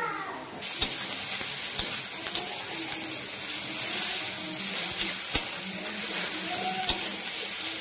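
Grated carrot and shredded cabbage sizzling in hot oil in a kadhai, the hiss starting suddenly a little under a second in. A metal spatula stirs the vegetables, knocking against the pan now and then.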